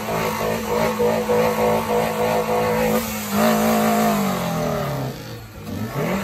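Modified Volkswagen Golf Mk1 engine revved and held at a steady high rev, stepping up briefly just after three seconds, then dropping back, with a quick rev rising again near the end.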